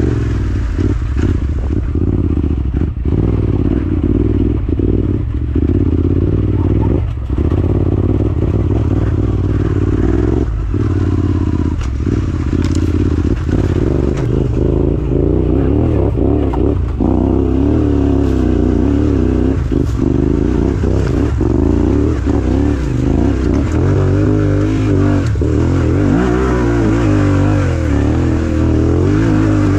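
Yamaha Ténéré 700's parallel-twin engine running at low revs as the bike is ridden off-road at walking pace, the throttle opening and closing so the engine note wavers and briefly drops many times.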